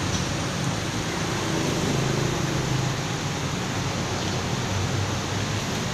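Steady rushing background noise with a low hum underneath, even throughout, with no distinct clicks or knocks.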